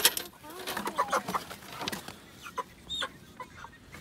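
Chickens clucking, mixed with short clicks and rustles of wet feathers being pulled by hand from a scalded chicken.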